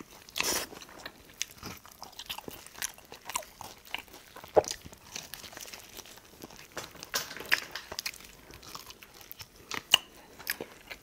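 Close-miked biting and chewing of Korean yangnyeom (sauced) fried chicken: irregular crunches of the fried coating.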